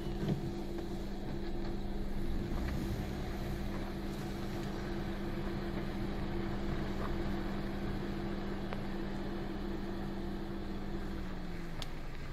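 Vehicle engine running with a steady hum over a low rumble. The hum drops in pitch and fades out about eleven seconds in.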